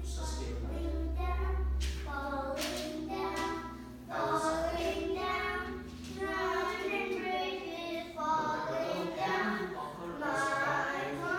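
A young child singing a wandering tune. A low hum underneath dies away about six seconds in.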